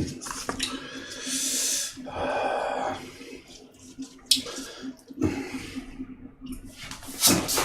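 A person eating close to the microphone: mouth sounds from chewing a wrap of fermented skate, with several long breaths through the nose and mouth and a few wet clicks.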